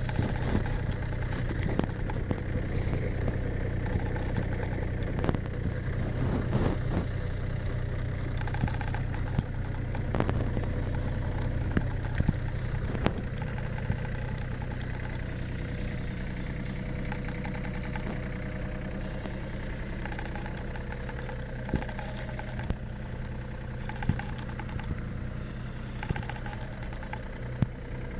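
Diesel engine of a 2012 John Deere 35D mini excavator idling steadily, with occasional light clicks and knocks.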